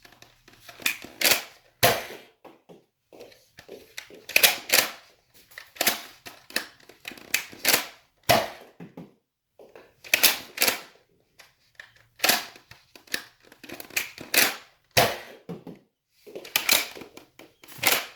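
Nerf Rival Takedown XX-800 pump-action foam blaster being loaded, primed and fired: repeated sharp plastic clacks, often in quick pairs and clusters, from the pump stroking back and forth, rounds being loaded and shots going off.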